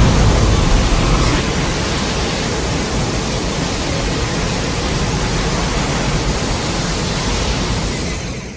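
The rumbling roar after a mushroom-cloud explosion sound effect: a steady, noisy roar that eases a little at first, holds, then fades out quickly near the end.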